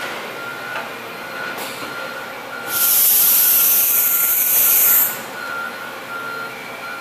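Toshiba BMC-80E horizontal machining center running: a steady machine noise with a thin high whine. About three seconds in, a loud hiss starts and lasts about two seconds.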